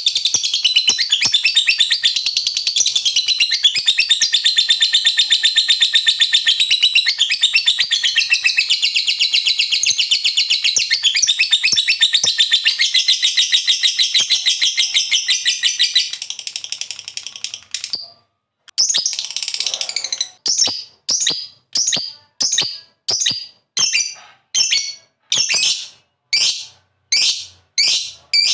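Lovebird singing its long 'ngekek' chatter: a fast, unbroken, high-pitched trill that runs for about sixteen seconds and then fades out. After a short pause it gives separate short chirps, about two a second.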